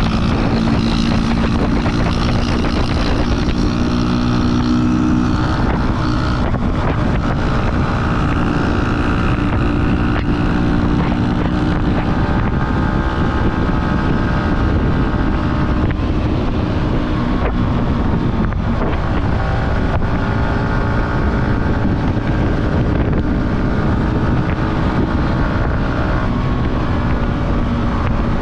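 Yamaha R15's 155 cc single-cylinder engine running under way, its pitch rising and dropping several times as the bike accelerates and changes gear. Wind buffets the microphone throughout.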